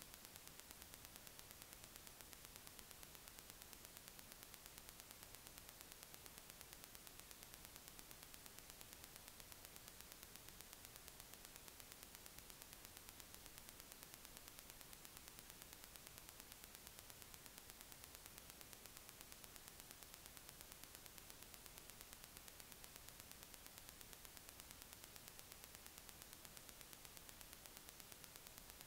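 Near silence: a steady, faint hiss of recording noise.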